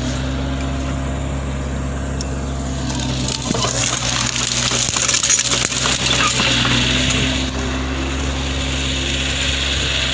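Mini excavator's diesel engine running steadily at a constant hum. From about three seconds in to past the middle, plants and woody stems crackle and snap as the machine crushes and uproots them.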